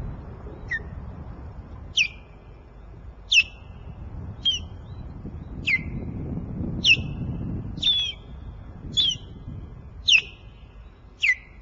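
Osprey calling from the nest: a series of about ten short, sharp whistles, each sliding steeply down in pitch, about one a second.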